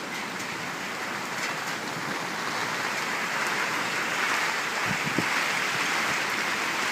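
Heavy rain pouring down, a steady hiss that grows slowly louder.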